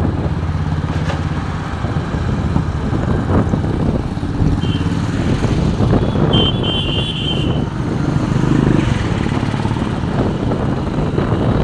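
Road traffic heard from a moving two-wheeler: motorcycle and scooter engines running steadily, with road and wind noise.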